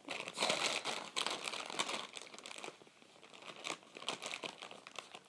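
Close-up crinkling and crackling of plastic being handled as leftover slime is cleared out of a container. It is dense for about the first two and a half seconds, then thins to scattered clicks and rustles.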